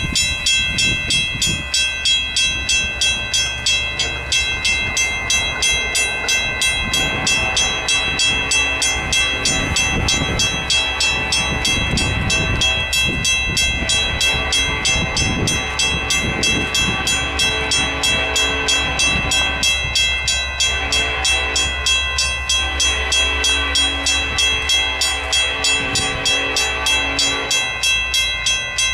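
Railroad crossing bells ringing as the signal activates for an approaching train: a Western Cullen Hayes mechanical bell and a WCH electronic bell start suddenly and keep up a fast, even clanging.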